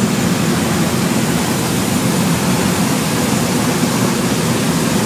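Steady, loud drone of a skydiving jump plane's engine and propeller, heard inside the cabin, with a rushing hiss of airflow over it.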